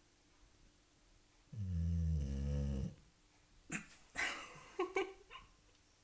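Boxer dog snoring: one deep, loud snore lasting over a second, starting about a second and a half in, followed by a run of shorter, rougher breaths.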